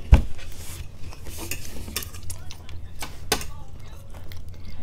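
Metal forks clinking and scraping against plates as spaghetti is eaten, with a sharp knock just after the start and a few scattered clinks after it.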